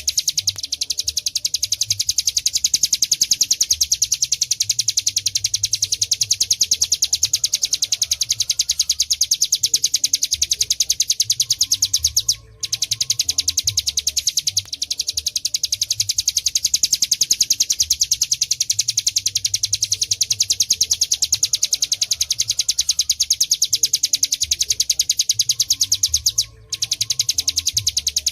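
Hill prinia (ciblek gunung) singing its 'ghebren' song: a fast, unbroken trill of high notes, pausing briefly about twelve seconds in and again near the end.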